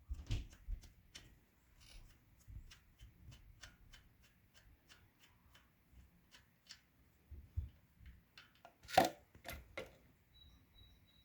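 Ratchet and 17 mm socket clicking in a long run of light, evenly spaced clicks as the motorcycle's oil drain plug is backed out, followed by one louder knock about nine seconds in.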